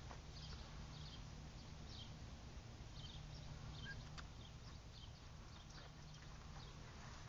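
Quiet outdoor ambience: a steady low hum with faint short high-pitched chirps repeating about every half second, and a few faint clicks.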